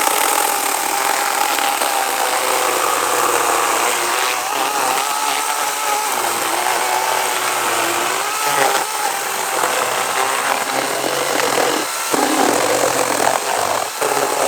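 Sun Joe 40-volt 16-inch cordless electric chainsaw running under load as it cuts through a log. The motor whine wavers in pitch as the chain bites, with brief dips in level near the end.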